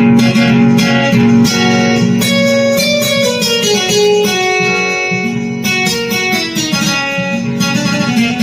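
Electronic keyboard played on its guitar voice: a run of plucked, guitar-like notes over sustained low notes, with a phrase stepping down in pitch around the middle.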